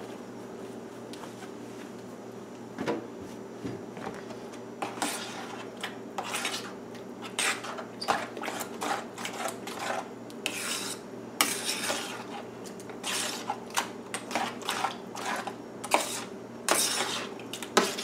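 Metal spoon stirring salsa in a stainless steel bowl: irregular scrapes and clinks against the bowl's side, starting about three seconds in and getting busier. A steady low hum runs underneath.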